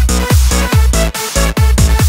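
Electronic dance music with a steady, heavy kick-drum beat and held synth chords.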